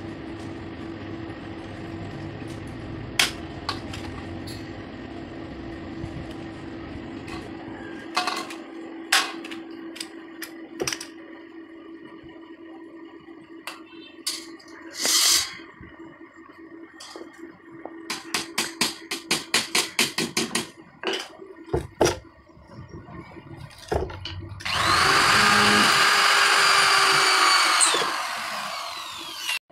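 Scattered sharp knocks and taps of metal work, with a quick run of taps about two thirds of the way in, over a steady low hum. Near the end a handheld power drill runs loudly for about three seconds, then winds down.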